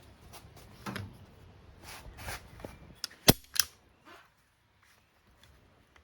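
A strap being undone from a quad bike tyre: rustling handling noises and sharp clicks, the loudest two snapping in quick succession about three and a half seconds in.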